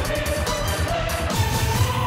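Music with a steady drum beat and a held high note that climbs in steps through the second half.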